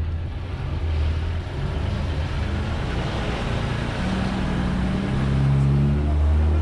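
Diesel engine of a classic Marcopolo coach pulling away and driving past close by: a low, steady drone whose pitch climbs a little from about four seconds in and grows louder near the end.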